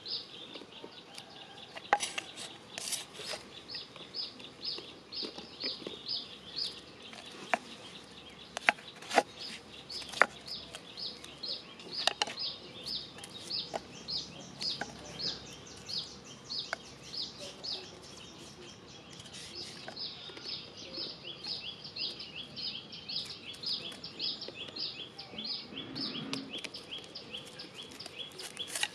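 Grilled vegetables being worked off bamboo skewers and dropped into a clay mortar, giving scattered sharp knocks and clicks, the loudest between about two and twelve seconds in. Behind them runs a steady high chirping, about three chirps a second.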